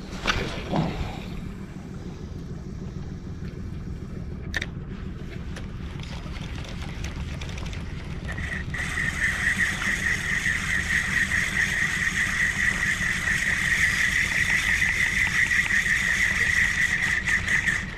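A short swish at the start as a fishing rod is cast, and a sharp click about four and a half seconds in. From about eight seconds in, a steady high whine of a bow-mounted electric trolling motor running holds over low wind and water noise.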